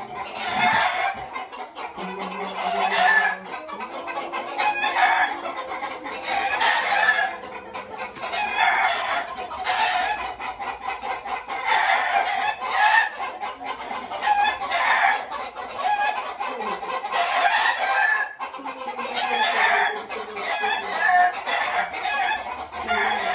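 Chickens calling over and over, a loud call every one to two seconds.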